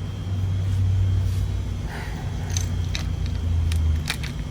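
Small plastic packages clicking and ticking as they are handled, several times in the second half, over a low steady hum.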